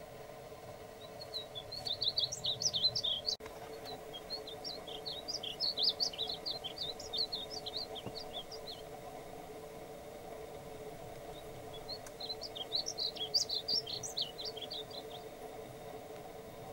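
Male painted bunting singing: three phrases of quick, high, sweet warbling notes, each a few seconds long, with short pauses between them.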